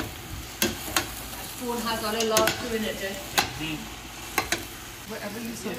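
Long metal spoon stirring chopped vegetables in a stainless steel pot, knocking sharply against the pot's side several times, over a soft sizzle of the vegetables frying.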